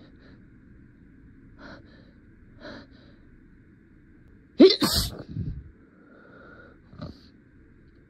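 A person's sneeze: two faint catching breaths, then a rising intake about halfway through that ends in one loud, sharp sneeze, followed by a short breath a couple of seconds later.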